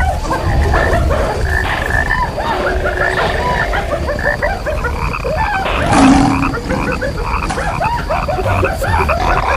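Animal stampede sound effect: a dense, continuous chorus of many short animal calls layered over a low rumble, with one louder animal cry about six seconds in.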